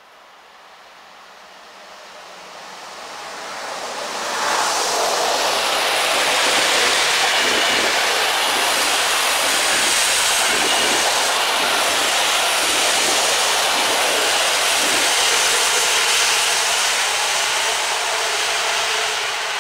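A passenger train hauled by an EU07 electric locomotive passes close by at speed. The noise builds for about four seconds, jumps suddenly as the train reaches the spot, then holds as a loud, steady rush of wheels on rails with a rhythmic clatter of wheelsets, easing slightly near the end as the train runs away.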